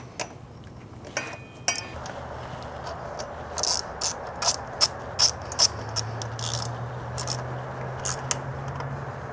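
Hand tools ratcheting and clicking against metal during motorcycle front-wheel work. A run of sharp clicks about every half second comes in the middle, over a steady low hum.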